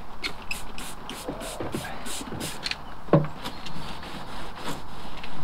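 Trigger spray bottle of cleaner squirted in quick short hisses, about four or five a second, then a single knock a little after three seconds in.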